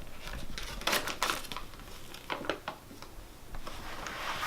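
Light clicks and rustling from small plastic toy pieces and packaging being handled, with a cluster of clicks about a second in and a few more a little later.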